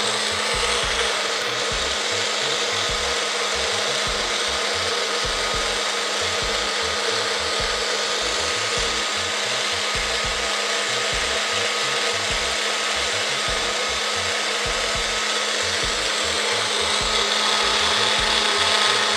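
Personal bullet-style blender running steadily, blending watermelon cubes and ice into a slushy margarita, with a motor hum under the whirr.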